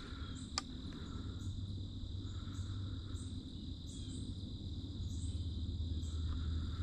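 Steady high drone of an insect chorus in the woods, with a faint high chirp repeating about every two-thirds of a second. Two sharp clicks sound in the first second.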